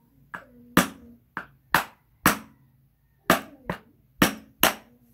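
A metal spanner tapping the handle of a flat-blade screwdriver about nine times at an uneven pace, driving the blade into the seam of a power bank's plastic case to pry it open. The strikes are deliberately kept light so the battery inside is not damaged.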